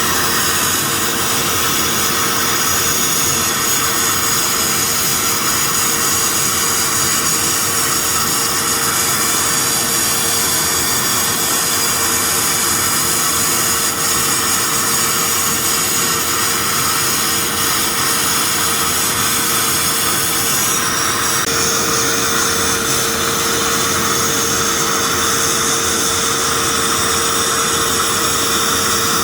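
Akwilon CNC automatic sandblasting machine running: a loud, steady hiss of the abrasive blast with a constant hum underneath, shifting slightly about twenty seconds in.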